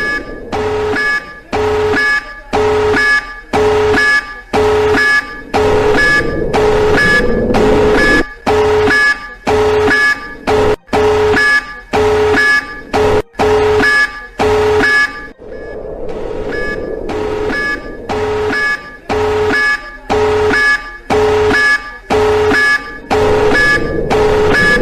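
Emergency alert system alarm: a harsh, buzzy two-tone beep pulsing about one and a half times a second, briefly running on as a steady tone about two-thirds of the way through before the beeping resumes.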